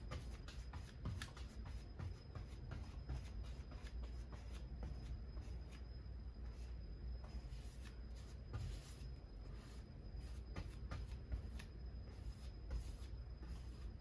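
Paintbrush stroking and scrubbing over a canvas, a run of short scratchy brush strokes about two to three a second.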